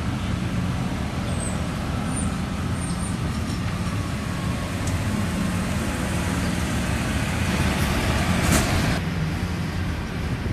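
Motor vehicle engine running steadily with a low hum, amid road traffic noise. Near the end a louder rushing swell builds and cuts off suddenly.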